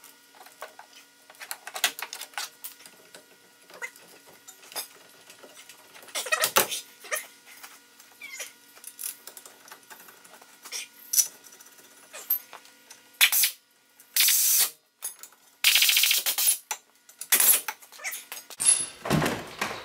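Scattered metal clinks and knocks as a brake caliper is handled and fitted back over the rotor on a front wheel hub. Starting a little past the middle, a power ratchet runs in several short loud bursts with a fast rattle, tightening it down.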